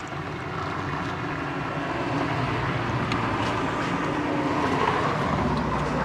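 A motor vehicle passing on the street, its engine and tyre noise swelling over the first two seconds, staying loud, and easing off just after the end.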